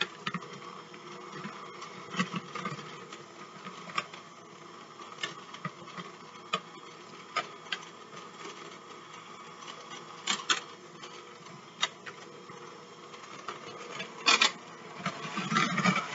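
Electric hand mixer running steadily as its beaters shred cooked chicken breast in a bowl, with scattered sharp clicks throughout and the sound growing louder near the end.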